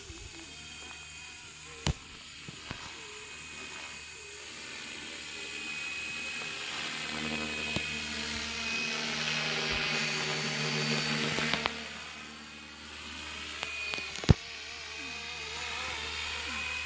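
Fw 450 electric RC helicopter flying overhead: a high-pitched whine of motor and rotor that grows louder as it comes near, peaking about ten seconds in, its pitch shifting as it passes before easing off. A sharp knock comes about two seconds in, and a louder one follows near the end.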